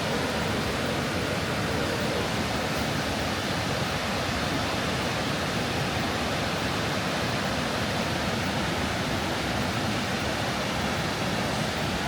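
Waterfall water pouring and cascading into the river, a steady, unbroken rushing.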